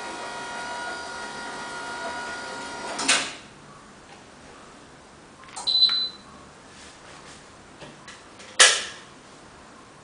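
Motorised retractable clothes rack's drive motor whirring steadily as the rack rises, stopping with a clunk about three seconds in as it reaches the top. A short high electronic beep follows near six seconds, and a sharp click near the end.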